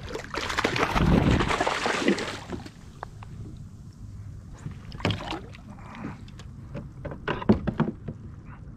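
A hooked tautog splashing at the surface beside the kayak for about two seconds, followed by scattered knocks and taps on the kayak and gear as it is handled.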